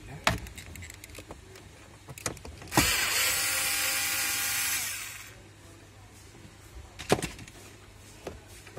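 A power drill-driver runs steadily for about two seconds, backing out a fastener that holds the cabin air filter cover. Sharp clicks of tool on plastic come before and after.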